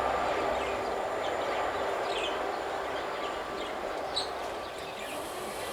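Regional train rolling away from the level crossing, its rail noise fading gradually, with a few short bird chirps over it.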